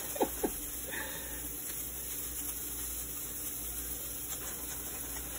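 Steady, even hiss of shredded cheese starting to sizzle in a hot, oil-sprayed nonstick skillet, with two light clicks just after the start.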